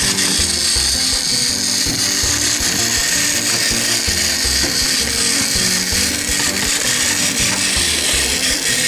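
Background music with a steady beat, over the high whirring buzz of a Plarail toy locomotive's small battery motor and plastic gears running.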